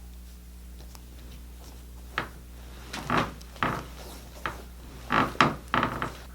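A series of about eight short knocks and scrapes, like hard objects or furniture being moved and handled, starting about two seconds in and coming irregularly for some four seconds, over a steady low hum.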